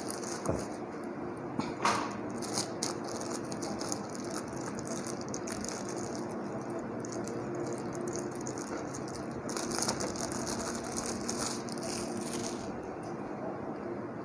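A four-port USB hub being unpacked from its plastic packaging: irregular rattling, crinkling and small clicks of plastic being handled, busiest near the start and again a little past the middle.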